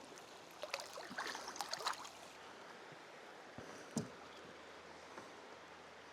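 Brief splashing and dripping of water about a second in, then a single sharp knock near four seconds in.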